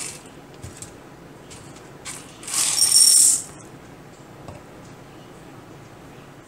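Dry pasta shells poured from a plastic cup into a ceramic bowl, a dense rattling rush lasting about a second, a few seconds in. At the very start the foil cheese-sauce pouch crinkles briefly as it is lifted out of the cup.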